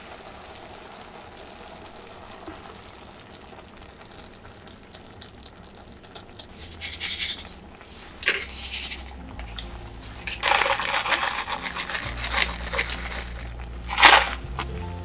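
Dry seasonings being tipped into a pot of tomato and simmered vegetables: a few short rustling, scraping bursts as consommé granules and curry powder go in, with a sharper, louder one near the end.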